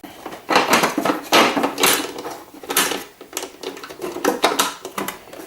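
Plastic packaging being pulled and crinkled off the parts of a new coffee machine, with light knocks and clatter as the parts are handled.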